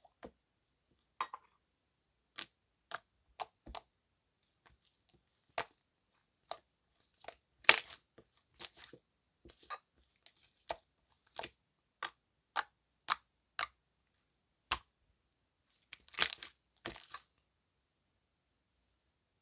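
Slime with foam mixed in being pressed and poked by hand, giving a string of sharp pops and crackles about once or twice a second, with a denser crackling cluster near the end.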